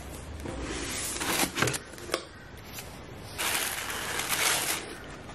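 Tissue paper rustling and crinkling as hands move it about inside a packed cardboard box, with a few light knocks in the first half. The loudest crinkling comes in the second half.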